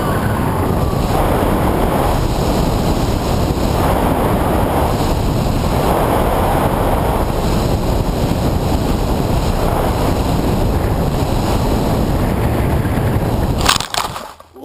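Steady rush of air over the model glider's onboard camera microphone as it flies down, ending near the end with a short clatter as the glider hits the grass.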